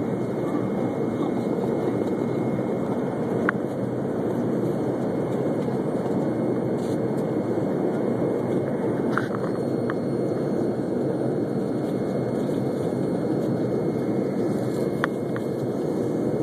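Steady engine and airflow noise inside a passenger airliner's cabin during the climb after takeoff, with a couple of faint clicks.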